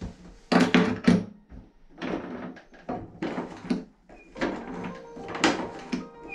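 Bath pop-up waste being worked by hand to test it: a run of clicks and knocks as the plug and overflow control are operated, loudest about half a second to a second in.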